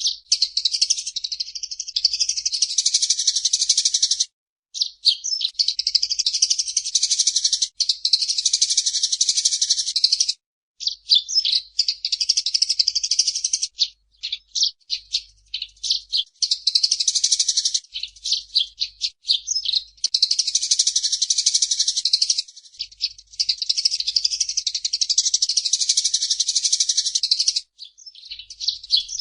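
Eurasian tree sparrow chattering: long, rapid runs of high-pitched chirps lasting several seconds each, with brief pauses between them.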